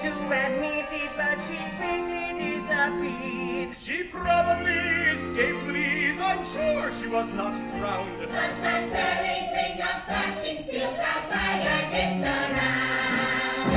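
Stage-musical orchestra playing, with a chorus of voices singing over it.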